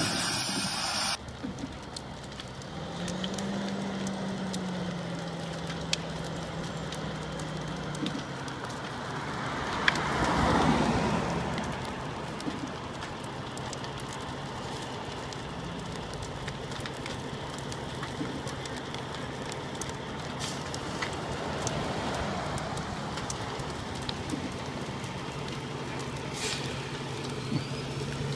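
Logs burning on a logging truck's trailer, crackling and popping steadily over a low engine hum. About ten seconds in, a vehicle passes with a rush that rises and fades.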